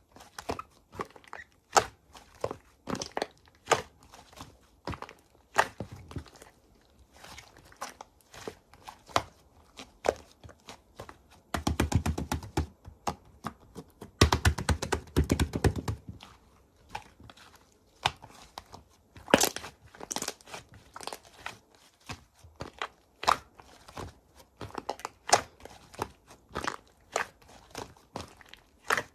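Crunchy malaengi slime, studded with dried-strawberry-style pieces, being squeezed and pressed by hand: a steady run of small crackling clicks and pops. Two denser stretches of rapid crackling come about twelve and fifteen seconds in.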